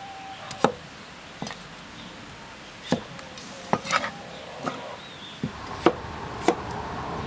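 Chinese cleaver chopping peeled potatoes on a thick wooden chopping board: single sharp knocks at uneven spacing, about one a second. A steady low rumbling noise comes in near the end.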